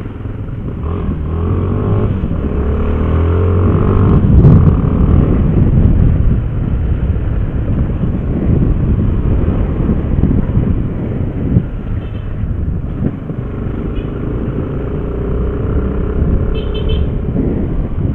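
Motorcycle engine running under way with wind and road noise, getting louder over the first four seconds or so as it picks up speed, then holding steady.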